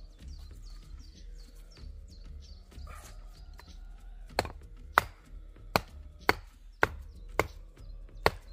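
Axe chopping wood: sharp, even blows a little under two a second, starting about four seconds in.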